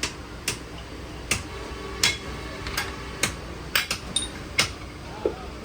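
A hand hammer striking metal about a dozen times at an uneven pace, sharp knocks with a short metallic ring, over a steady low workshop hum.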